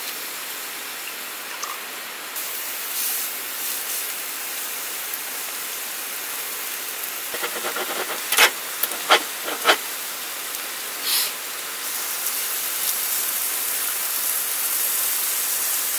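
Steady fizzing hiss as soju and beer are poured into a glass for somaek, growing slightly toward the end, with three sharp clicks a little after halfway.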